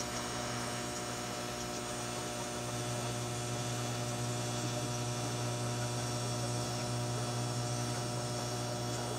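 Electric welding arc burning steadily, a constant buzzing hum with a hiss over it, held through one long weld bead.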